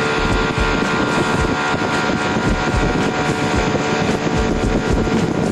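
Jet boat engine running steadily under way, with the rush of water and wind buffeting the microphone.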